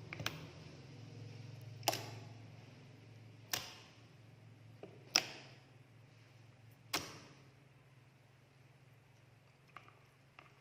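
Five sharp clicks, spaced about one and a half to two seconds apart, over a faint steady low hum; two faint ticks near the end.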